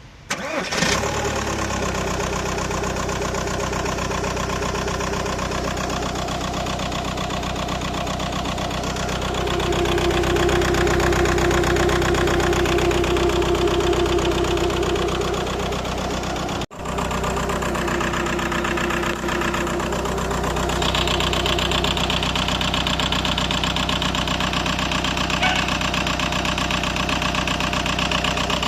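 A car engine starts almost at once and settles into idle, running rough from a cylinder 1 misfire (fault codes P0301 and P1666). It cuts out for an instant about two-thirds of the way through.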